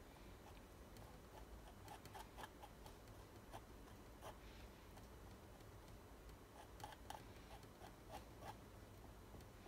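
Faint, short scrapes and taps of a metal palette knife spreading thick acrylic paint on a stretched canvas, a handful of separate strokes over a low room hum.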